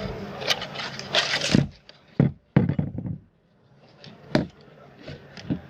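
A series of knocks, clicks and scrapes from fan parts being handled while a table fan is taken apart.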